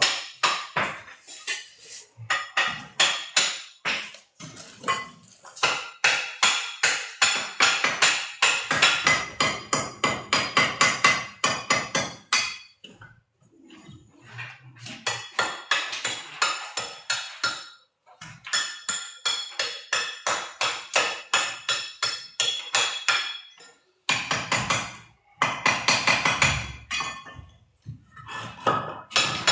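Rapid, sharp hammer tapping on hard material, about four strikes a second, in runs broken by short pauses.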